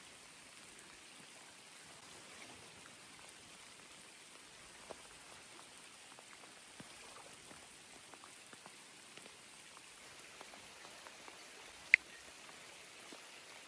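Rain falling: a steady hiss with scattered drops ticking, and one much louder sharp tick near the end.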